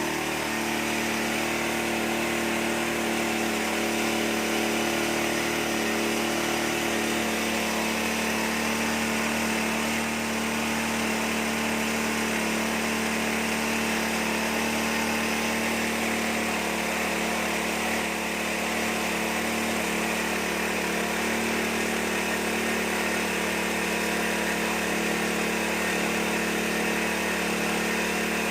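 Corn-cracking machine running steadily with a constant mechanical hum and whine, its tone shifting slightly about six seconds in.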